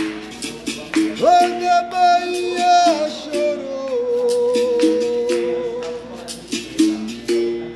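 Berimbau struck with a stick in a steady rhythm, with a caxixi rattle in the same hand, switching between its low and higher notes. About a second in, a man's voice takes up one long sung note that slides lower about three seconds in and holds until about six seconds in.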